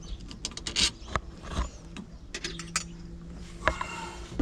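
Irregular small clicks and rattles of a screwdriver and plastic parts being worked loose from a truck's steering column during removal of the turn signal assembly.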